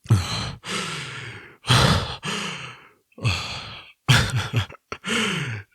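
A man breathing heavily and out of breath after exertion: about seven hard breaths in quick succession, several drawn out with a voiced tone falling in pitch.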